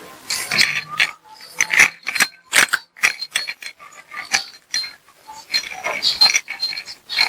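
Tabby cat chewing and smacking on a treat: an irregular run of sharp, wet clicks with brief pauses.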